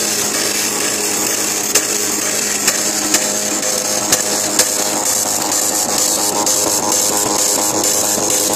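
TallyGenicom T6215 line matrix printer printing a character-set test page: a steady, dense mechanical buzz, with a handful of sharp clicks in the first half.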